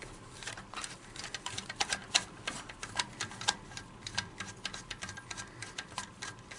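Flat-blade screwdriver turning out the pistol grip screw of an AK-47, giving a run of sharp, irregular clicks, several a second.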